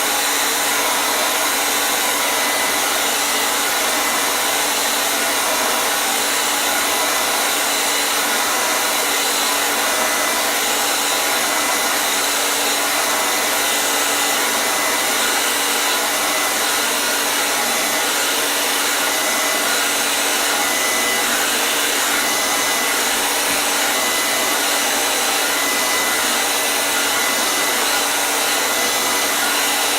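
Hair dryer running steadily: a constant rush of blown air with a faint motor whine that does not change.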